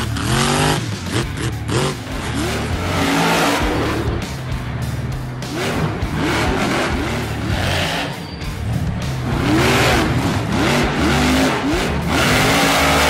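Losi LMT RC monster trucks' electric motors whining up and falling back again and again with throttle blips, with sharp knocks as the trucks land and bounce on the dirt ramps. Background music with a steady bass line plays underneath.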